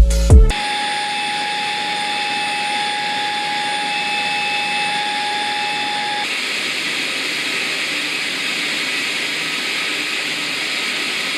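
PUPPYOO T12 Plus Rinse cordless vacuum cleaner motor running steadily with an airy whine. About six seconds in its sound changes: a steady tone drops out and the rush of air turns higher and brighter.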